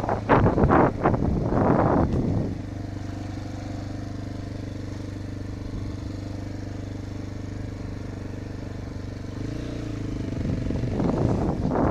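Enduro motorcycle engine: a few short throttle blips, then idling steadily for several seconds, picking up again near the end.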